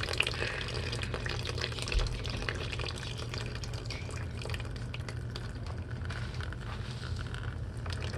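Vinegar solution draining from a hot water heater into a bucket: a steady stream of water splashing and filling, with a low steady hum underneath and a small knock about two seconds in.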